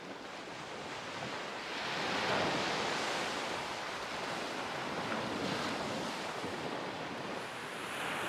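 Sea waves washing on the shore, a steady rush that swells about two seconds in.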